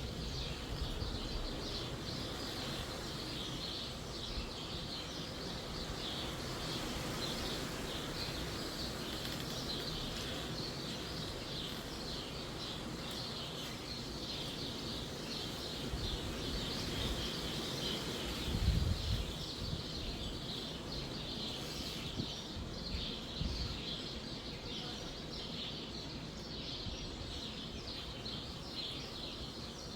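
Small songbirds chirping continuously in a dense chorus, with wind rumbling low in the trees and on the microphone, swelling into a stronger gust a little past halfway.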